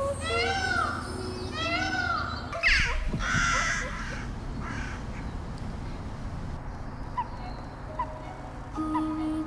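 Crow cawing: three harsh, arched caws of about half a second each, then a louder, rougher call about three seconds in. Short faint chirps follow.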